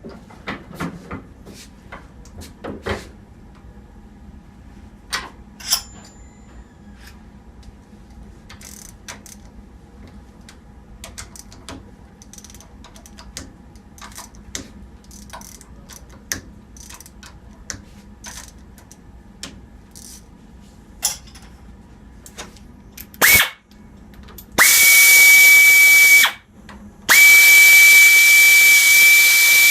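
Small metal clicks and knocks of tools and parts being handled on the bench. Then, near the end, a short blast and two long bursts of compressed air hissing with a steady high whistle, with a brief break between them.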